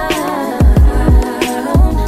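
Background music: an R&B song with a sung vocal over a steady beat.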